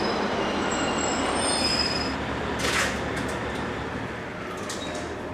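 Train moving along a station platform, with thin high-pitched squeals over the first two seconds and a short hiss about two and a half seconds in, the running noise then easing off.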